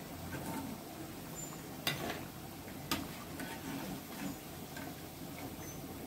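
Steel slotted skimmer clinking twice against an iron kadai, about a second apart, with a few fainter ticks, while fried vadais are lifted out of hot oil. Faint steady sizzling of the oil underneath.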